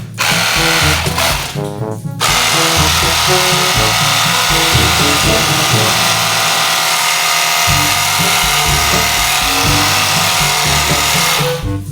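Background music with a stepping bass line. From about two seconds in, a loud, steady hiss covers it and cuts off shortly before the end, the kind of noise a power tool or spray makes.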